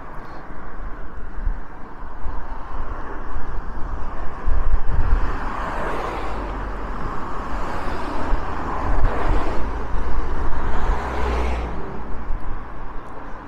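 Road traffic: several cars pass close by one after another, each a rising and falling rush of tyre and engine noise, over a steady low rumble of wind buffeting the microphone.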